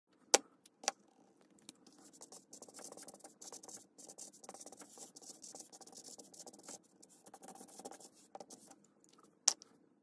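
Felt-tip marker scratching across paper in short writing strokes, faint. Two sharp clicks come in the first second and another near the end.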